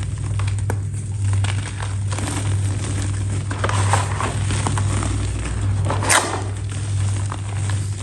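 Close-up crackling and crunching of a crisp, crumbly material being crushed and snapped, with scattered small crackles and louder crunches about four and six seconds in. A steady low hum runs underneath.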